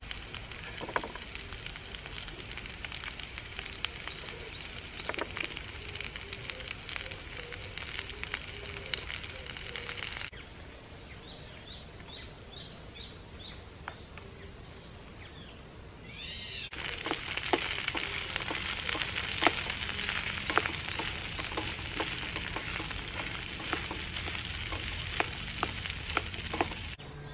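Diced onion sizzling in a frying pan on a portable gas-canister stove, with clicks and scrapes of a spoon stirring it. About ten seconds in, the sizzling gives way to a quieter stretch with short repeated bird chirps, then returns louder with more stirring clicks for the last ten seconds.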